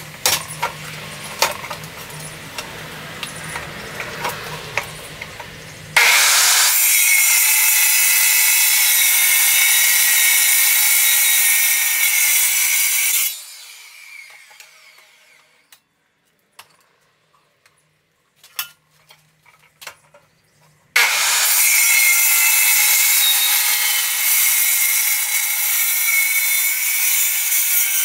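Milwaukee metal-cutting circular saw ripping lengthwise along a steel pipe clamped in a vise: a steady high whine while the blade cuts, in two long passes, the first starting about six seconds in and winding down about halfway through, the second starting about three quarters of the way through. Scattered clicks of handling come before and between the passes.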